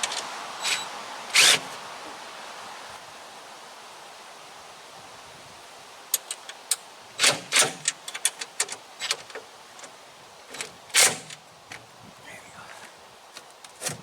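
Scattered clicks, taps and knocks from handling a generator's starting battery and its metal hold-down clamp. One sharp knock comes about a second and a half in. A quick run of clicks and taps follows from about six seconds, with another loud knock near eleven seconds.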